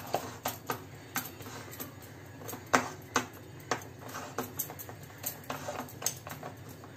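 Hands patting and pressing a thick cooked gram-flour and coriander mixture flat on a plate: a string of irregular light taps and clicks, the loudest a little under three seconds in.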